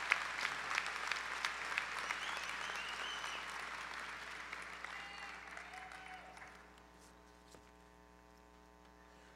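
Audience applauding, with a few sharp nearby claps standing out, the applause fading away about two-thirds of the way through. A faint steady electrical hum is left underneath.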